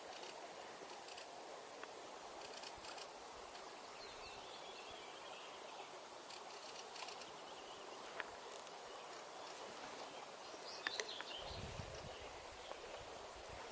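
Steady rush of river water, with faint bird chirps here and there and a few sharp clicks in the second half.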